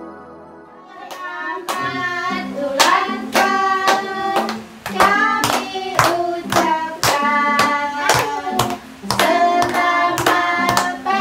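Group of voices, children's among them, singing a birthday song while clapping in time about twice a second. The tail of an instrumental intro tune fades out in the first second.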